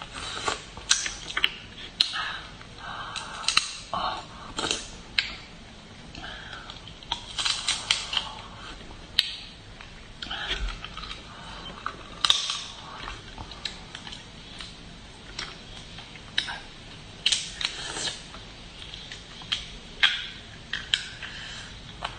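Close-miked eating of garlic lobster: irregular wet chewing and smacking broken by sharp clicks, coming in bursts a second or two apart.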